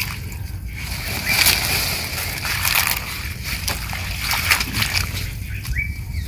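Water splashing and sloshing in irregular bursts as lá giang leaves are washed.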